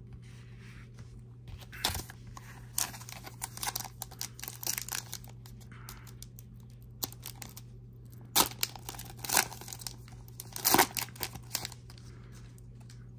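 The foil wrapper of a Panini Prizm football card pack being torn open and crinkled by hand, in irregular bursts of tearing and crackling that are loudest near the end.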